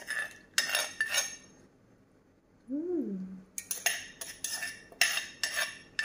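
Metal spoon clinking and scraping against an earthenware pot as dressing is ladled out. The clinks ring and come in two runs, a few near the start and a quicker series through the second half. A short hum rises and falls in pitch in the gap between them.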